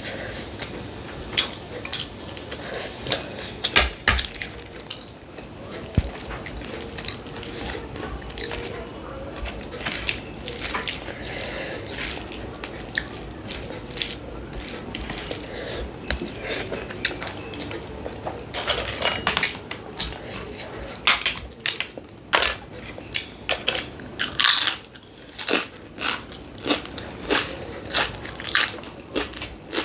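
Close-miked eating: wet chewing and lip-smacking in quick, irregular clicks, coming thickest in the last third.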